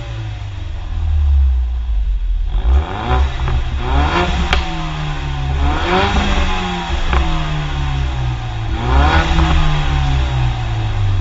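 Ford Mustang's engine revved through its exhaust, about three times, the pitch climbing then falling back to a lower idle each time. A sharp crack sounds at the top of the first rev.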